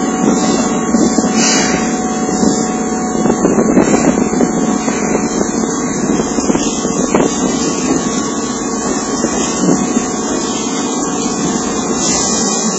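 Keihan 6000 series electric commuter train standing at a station platform. Its onboard equipment hums steadily, with a faint constant whine.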